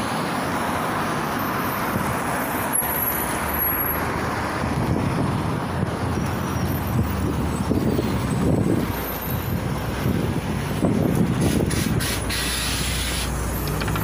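Street traffic noise as a LiAZ 5292.67 city bus, running on compressed natural gas, pulls into a stop. About twelve seconds in there is a hiss of compressed air, then the bus's engine idles with a low steady hum.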